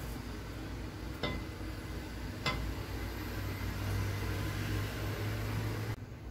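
Soup being ladled into a ceramic bowl with a plastic ladle: two sharp knocks of the ladle against the cookware, a little over a second apart, over a steady low hum that drops away near the end.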